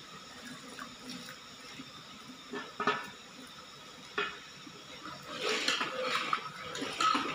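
Sliced coconut and raisins pushed off a china plate into a metal pot of hot syrup, with a few sharp knocks of plate or spoon against the pot about three and four seconds in, then a busier stretch of scraping and stirring near the end.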